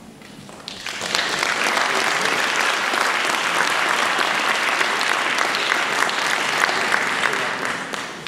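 Audience applauding: the clapping swells in about a second in, holds steady, and fades out near the end.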